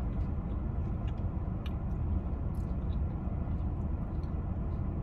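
Steady low rumble of a car running while parked, heard inside the cabin, with a few faint small clicks over it.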